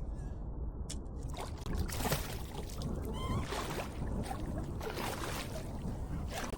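Water sloshing and splashing against a kayak's hull, with scattered small knocks and clicks. The sound is muffled for the first second or so, then opens out after a cut. There is a short squeak about three seconds in.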